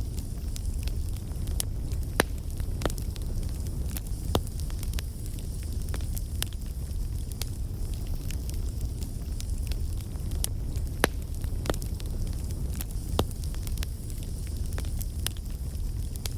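Wood fire burning, with a steady low rumble of flames and irregular sharp crackles and pops from the burning wood.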